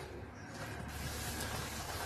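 A hand mixing raw eggs and sugar in a glazed clay bowl: faint wet squishing over a steady low hum.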